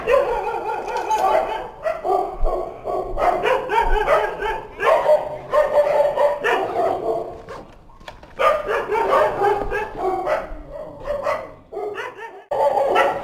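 A dog barking over and over in quick runs, with short breaks about two-thirds of the way through and near the end.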